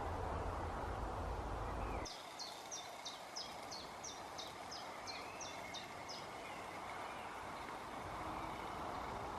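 A low rumbling noise stops abruptly about two seconds in. A small woodland bird then sings a run of about a dozen quick, identical high notes, a little over two a second.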